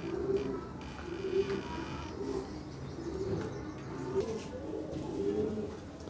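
A flock of fantail pigeons cooing, several birds calling over one another with low, repeated coos about once a second.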